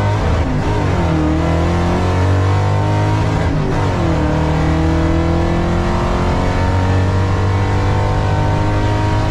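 Car engine accelerating hard. Its pitch climbs steadily through each gear, with a shift about half a second in and another about three and a half seconds in.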